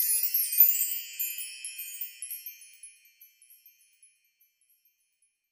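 Shimmering chime sound effect: a cluster of high tinkling tones that fades away over about the first four seconds.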